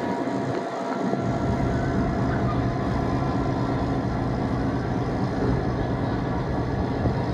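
EMD F3 diesel locomotive running, a steady engine drone with a deeper rumble coming in about a second in and holding steady.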